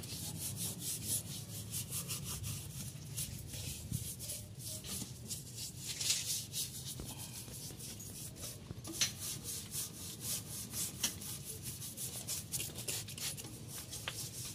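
Quick, repeated scrubbing strokes on the aluminium of a Toyota 4A-FE engine part being cleaned to bring back its bare metal colour.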